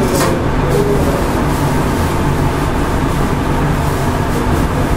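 Loud, steady low rumble with a faint hum, the running noise of a stove and kitchen equipment while a pot of spiced water heats toward the boil.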